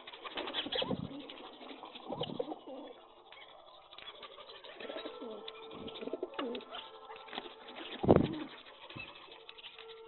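A flock of rock pigeons cooing in low, gliding calls while they peck grain, with many small ticks throughout. A louder burst comes about eight seconds in.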